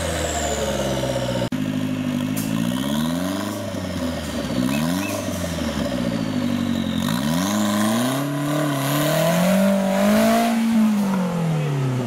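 Off-road 4x4's engine revving up and down again and again under load as it claws through deep mud, its pitch rising and falling several times and reaching its highest near the end.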